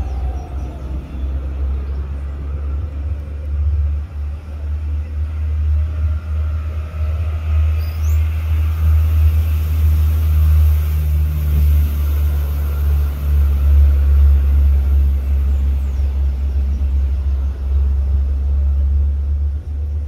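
A loud, steady low rumble that fluctuates in strength.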